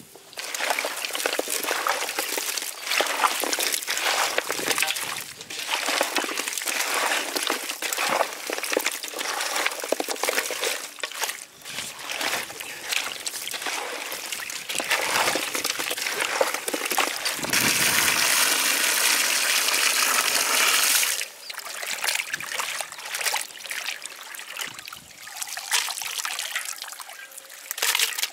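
Hands squelching and sloshing raw chopped goat head meat with turmeric and water in a large metal basin, a rough wet churning. A few seconds past the middle it turns to a steadier wet rush, like water poured in.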